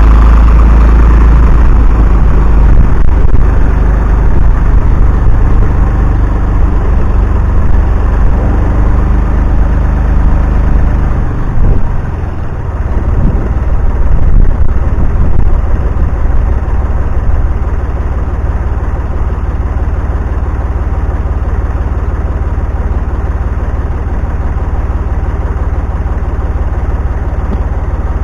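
An engine running steadily with a heavy low rumble, dipping briefly about twelve seconds in.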